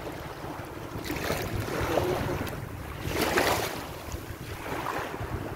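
Wind buffeting the phone's microphone in gusts, over shallow sea water washing at the shore.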